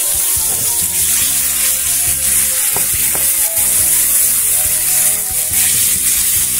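Swordfish steaks frying steadily on a hot steel plough-disc griddle as they are turned over with a metal spoon and skimmer, with two light clinks of the utensils about three seconds in.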